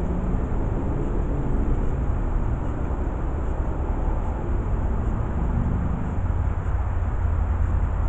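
Steady low rumble of vehicle engine and road noise, with faint engine tones that drift in pitch.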